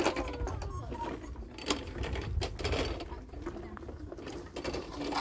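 Plastic wheels of a child's tricycle rolling over rough concrete, a continuous rattle with irregular clicks.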